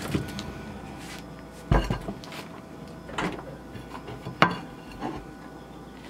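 Scattered knocks and thumps of a refrigerator being handled as a bagged whole chicken is taken out. There is a dull heavy thump a little under two seconds in, lighter knocks after it, and a sharp click a little past four seconds.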